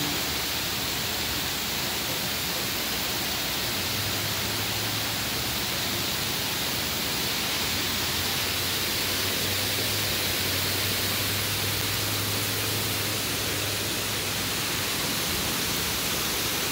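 Heavy rain pouring down in a steady, dense hiss. A faint low hum sits underneath for several seconds in the middle.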